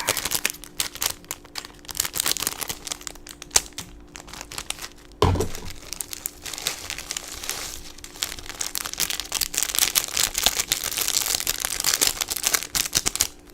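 Plastic food packets crinkling and tearing as they are opened and handled, in a dense irregular crackle, with a dull thump about five seconds in.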